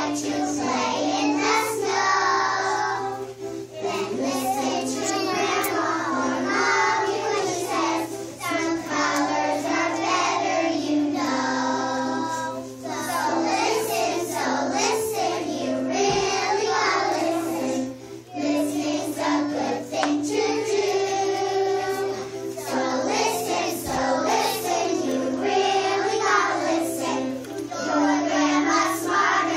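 A group of young kindergarten children singing a song together, in unison.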